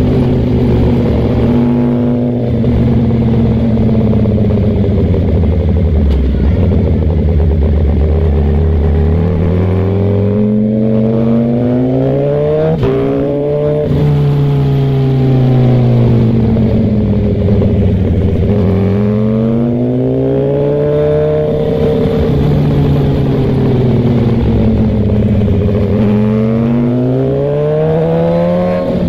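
Suzuki GSX-R1000 sportbike's inline-four engine under way, running low and fairly steady at first, then rising and falling in pitch again and again as the throttle is opened and closed.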